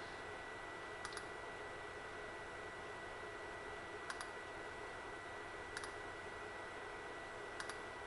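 Tektronix 222 digital storage oscilloscope running its channel 1 self-calibration: four faint sharp clicks a couple of seconds apart, most of them quick double clicks. A faint steady high tone and hiss lie underneath.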